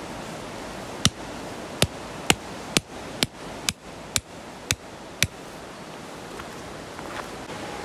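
A run of nine sharp knocks, about two a second, that stops about five seconds in, over a steady background hiss.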